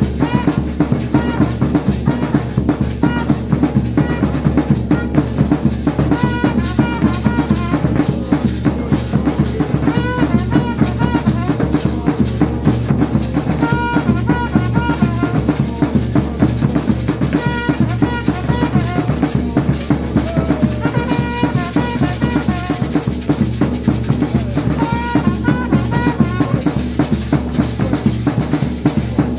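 Several large double-headed drums beaten with sticks in a fast, steady rhythm by a drum band, with short trumpet phrases played over the drumming.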